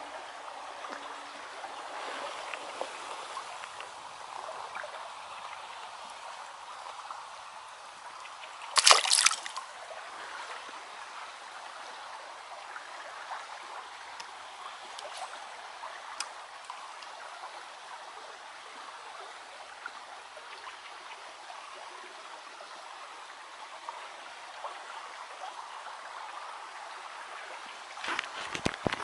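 Small river's water trickling and flowing steadily over shallows, with one short loud noise about nine seconds in.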